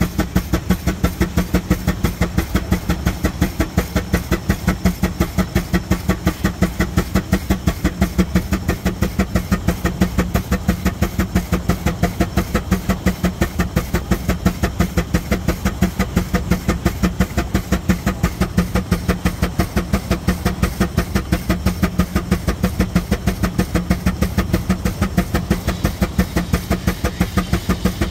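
Steam traction engine running steadily, its exhaust beating at the stack in an even, unbroken rhythm.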